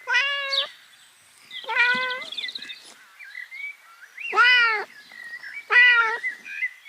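Kittens meowing: four high, arching meows about a second or so apart, with fainter short chirping calls between them.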